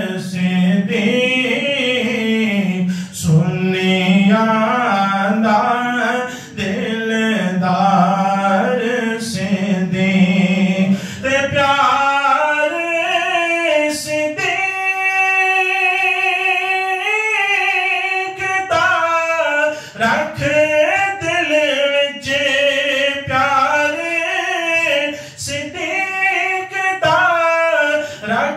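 A man singing a devotional manqabat solo, with no instruments, in long ornamented phrases. About eleven seconds in, the melody climbs to a higher register and holds long notes.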